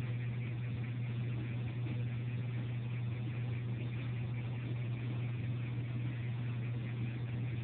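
Steady low hum with a hiss above it, unchanging throughout.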